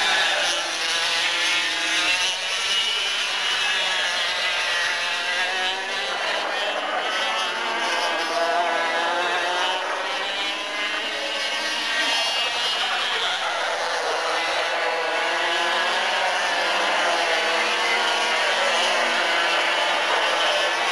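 Parilla two-stroke racing kart engines buzzing, several at once, their pitch rising and falling as they rev through the corners and pass.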